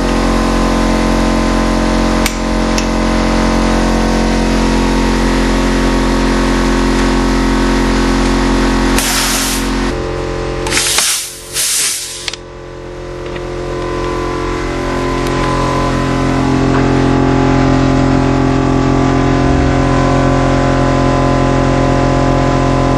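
Compressed-air tube-cleaning gun firing foam cleaning projectiles through air-conditioning tubing: a short loud hiss of air about nine seconds in and a longer one about eleven seconds in, over a steady hum with several pitches.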